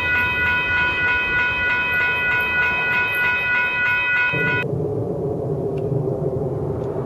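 Double-stack container freight train rolling past, with a steady high-pitched ringing tone over the rumble of its cars. About four and a half seconds in this cuts off abruptly, and the low rumble of a Boeing 747's four jet engines passing overhead takes over.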